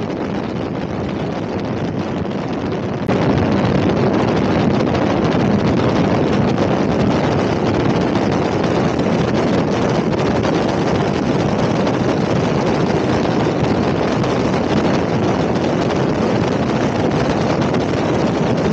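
Wind rushing over the microphone of a camera on a moving motorcycle, a steady roar with the bike's road noise mixed in, stepping up in loudness about three seconds in.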